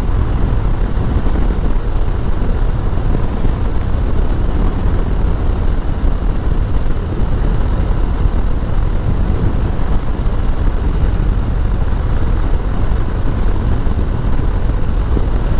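Harley-Davidson Low Rider S V-twin running steadily at cruising speed, mixed with a steady rush of wind and road noise on the rider's microphone.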